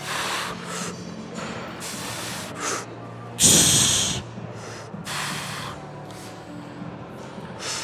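A man's forceful exhales through pursed lips, one after another, as he strains through hack squat reps. The strongest comes about three and a half seconds in.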